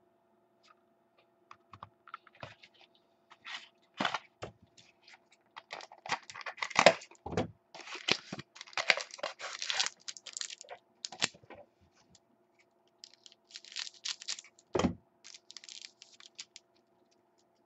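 A trading card pack being torn open and its cards handled: irregular crinkling, tearing and clicking, busiest in the middle and again near the end, over a faint steady hum.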